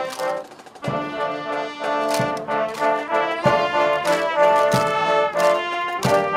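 Background music: brass instruments playing a melody over a regular drum beat, with a short dip in level about half a second in.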